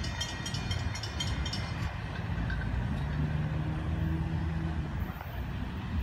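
Road traffic moving over a railroad grade crossing: car and truck engines and tyres, with a steady engine drone from about two to five seconds in. A faint, rapid high ringing fades out about two seconds in.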